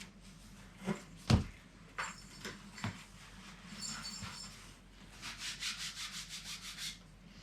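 Books and packaging being handled: a few soft knocks and one louder thump as a book is put down, light rubbing, then a quick run of scratchy rustles near the end.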